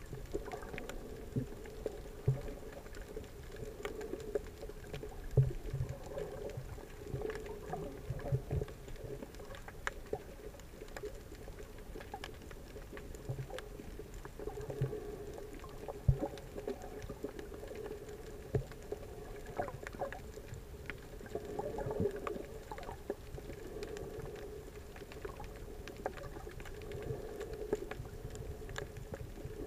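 Underwater sound picked up by a camera in a waterproof housing: a muffled, low hum that swells and fades, with scattered irregular clicks and knocks.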